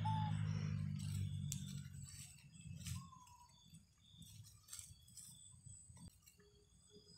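A low steady hum that fades out over the first two to three seconds, then faint crinkling of a plastic snack wrapper as a baby monkey rummages in it, with short high squeaks at the start and about three seconds in.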